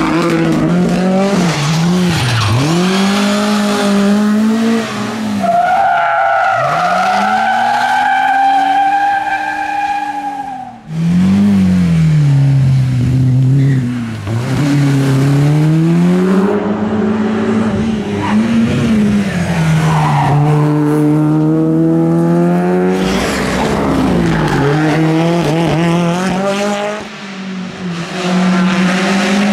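Rally and hill-climb race cars at full throttle on a mountain road, engines revving up and dropping back as they shift and brake for corners. Tyres squeal in a long, high note through a corner about six seconds in. The sound jumps abruptly from one car to the next twice.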